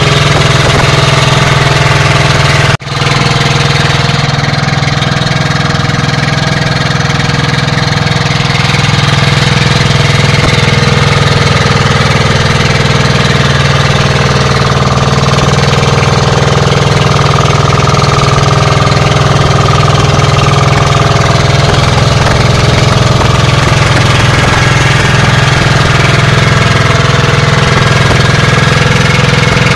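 Small engine of a wooden outrigger fishing boat running steadily under way, loud and close, with a brief break in the sound about three seconds in.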